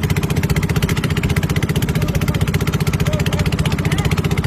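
Small engine running steadily at a fast, even chug.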